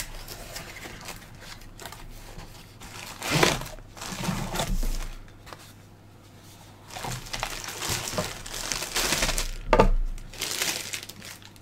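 Crinkling and rustling of a clear plastic bag and cardboard packaging in irregular bursts, as a flexible mini tripod is unboxed and pulled out of its plastic bag.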